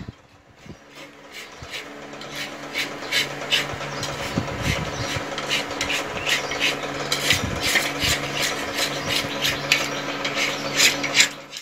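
A metal utensil scraping against a large iron karahi in quick repeated strokes, a few a second, starting about a second in and growing louder, as the thick milk skin is cut and scraped for rabri. A steady low hum runs underneath.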